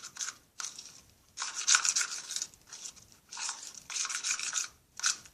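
A small spoon stirring a sticky glue-based slime mixture, scraping and rubbing against the container in about seven uneven strokes.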